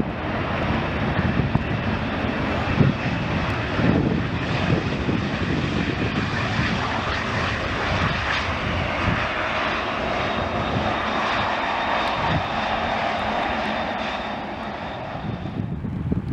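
Airliner engines running loudly as a plane passes, with a faint steady high whine over the rush, and strong wind buffeting the microphone. The sound eases off near the end.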